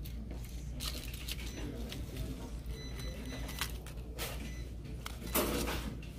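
Earring display cards being handled on their hooks: a few short clicks and rustles of card, the strongest near the end, over a steady low hum.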